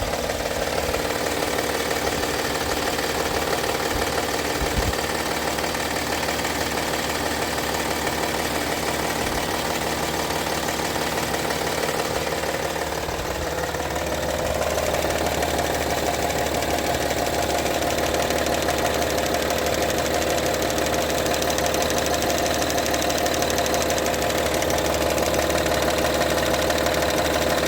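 Honda Pilot V6 engine running with a knock, the fault the recording is made to show. About halfway through, its note steps up a little and it gets slightly louder.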